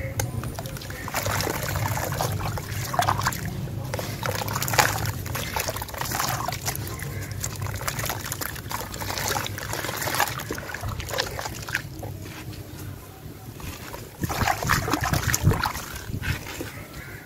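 Hands dipping and crumbling a wet sand chunk in a plastic tub of water: irregular splashing, trickling and gritty crumbling. A louder stretch of splashing comes near the end.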